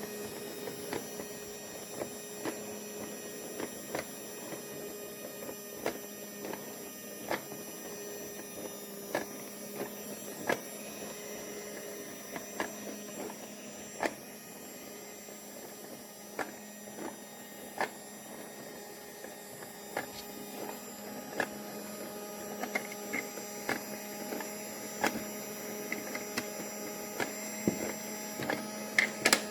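Toy washing machine running with a steady motor hum, and short knocks or clicks every second or two as the toy sheep and ducks tumble in its drum.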